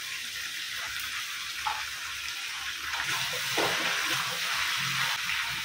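Mixed vegetables frying in hot oil in a steel kadhai, a steady sizzle, as handfuls of pui saag (Malabar spinach) leaves and stems are dropped in.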